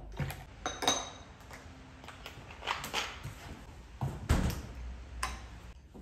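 Glassware being handled on a hard countertop: a series of light knocks and clinks, one about a second in ringing briefly like glass, and a heavier knock with a dull thud a little after four seconds.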